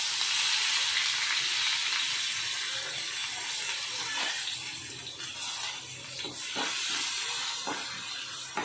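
Curry leaves and dried red chillies sizzling and spluttering in hot oil in a nonstick pan: a rasam tempering (tadka). The hiss slowly dies down, with a few crackles in the second half and a ladle stirring in near the end.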